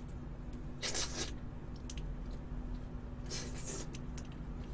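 Soft mouth sounds of gnawing meat off a braised chicken drumstick, with two short hissy bursts about a second and three and a half seconds in.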